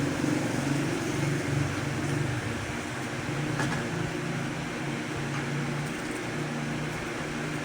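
Steady low mechanical hum of a running motor, with a droning tone that swells and fades every second or so.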